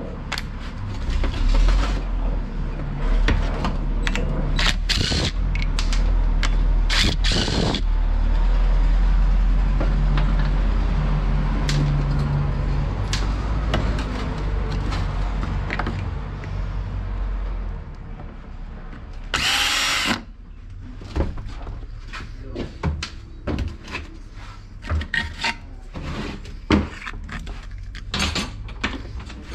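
Workshop tool work on a brush cutter: a power tool runs with a steady low hum for about the first eighteen seconds, with sharp clicks and clanks of tools and metal parts throughout. A little past the middle comes a loud hiss lasting about a second, then more scattered clicks and knocks.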